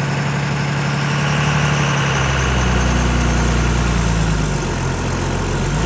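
Heavy diesel engine running at raised revs, easing off about four seconds in and picking up again near the end.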